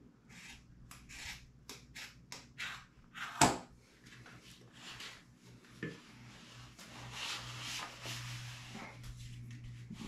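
X-tube grip tubing being rubbed and pushed along a PVC pipe handle, making a run of short scraping strokes and a longer rubbing hiss, with one sharp knock about three and a half seconds in.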